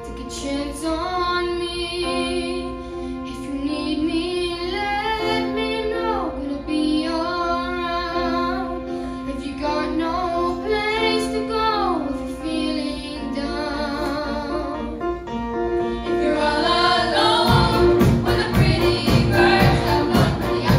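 Middle-school choir singing a slow passage with long held notes and sliding pitches, over instrumental accompaniment from piano and strings. About 17 seconds in, a steady beat enters and the music gets louder.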